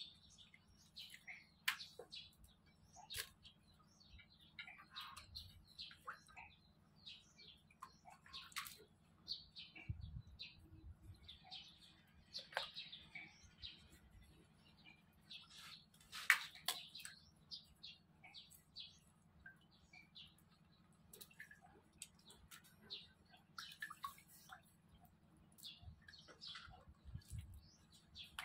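Small birds chirping on and off in short high calls, with faint clicks and small splashes as live crabs are handled in a basin of water.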